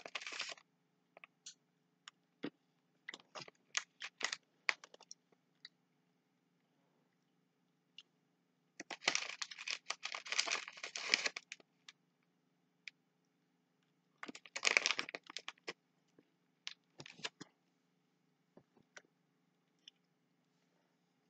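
Plastic candy bag crinkling in three bursts, briefly at the start, longer a little before the middle and again a few seconds later, with scattered faint clicks and crunches in between.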